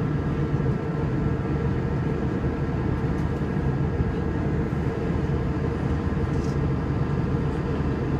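Airbus A321 cabin noise in flight: a steady low rumble of engines and airflow with faint steady whine tones above it.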